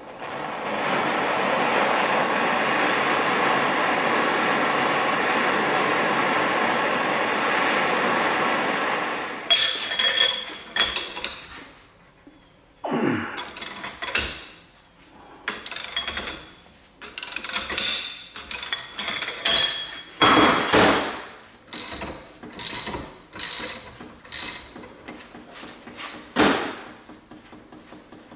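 Handheld gas torch burning with a steady hiss for about nine seconds as it heats a seized plug in an oil filter housing, then cut off. After that a ratchet with a pipe extension on its handle clicks in short runs, with sharp knocks of metal, as the Allen socket breaks the plug loose.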